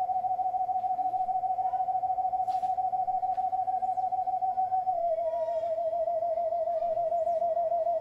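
A single sustained, pure musical tone with a quick wavering vibrato, held steady and then stepping slightly lower about five seconds in. Faint clicks sound underneath.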